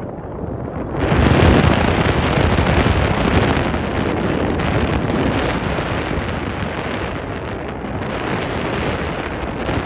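Wind blowing across the microphone aboard a moving ferry: a strong gust comes in suddenly about a second in and eases off slowly over the following seconds.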